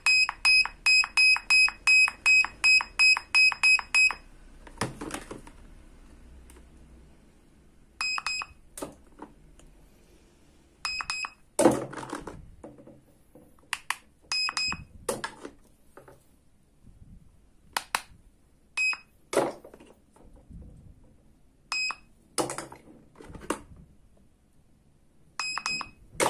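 Toy cash register beeping: a quick run of about a dozen short, high electronic beeps as its keypad buttons are pressed, then single beeps every few seconds as keys and its toy barcode scanner are used. Between the beeps, plastic toy food and parts click and knock as they are handled.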